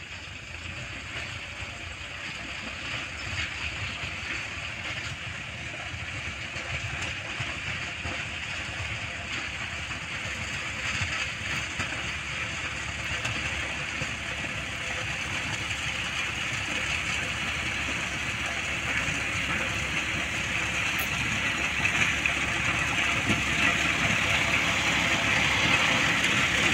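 John Deere 5210 tractor's diesel engine running steadily under load while its rotavator churns dry, cloddy soil, growing steadily louder as it comes closer.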